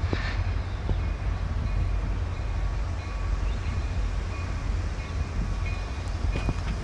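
CN train passing, nearly buried under heavy wind rumbling on the microphone, with the locomotive bell ringing faintly and steadily over it.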